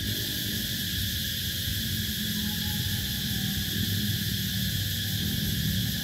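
Steady chorus of night insects, a continuous high-pitched drone in several layered pitches, with a low, continuous rumbling drone underneath.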